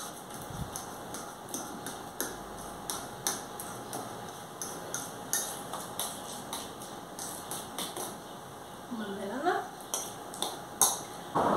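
A fork mashing bananas in a stainless steel bowl, its tines clinking against the metal about twice a second.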